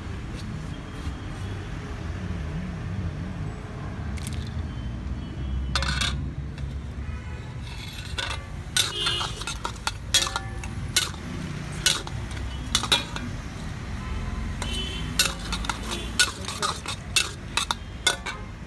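Flat metal spatula scraping and clanking against a metal wok while chilli chicken pieces are stirred and tossed. The clanks are sharp and irregular, come thickest in the second half, and play over a steady low rumble.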